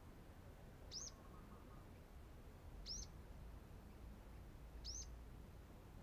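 Sunbird calling: three short, high chirps, each rising and then falling in pitch, evenly spaced about two seconds apart.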